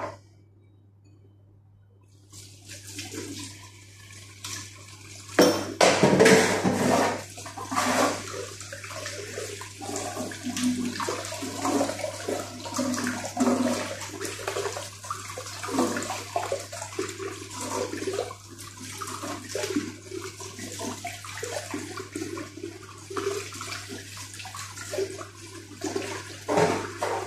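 Kitchen tap running into a stainless steel sink, the water splashing over hands rinsing shrimp under the stream. It starts about two seconds in, with the heaviest splashing a few seconds later.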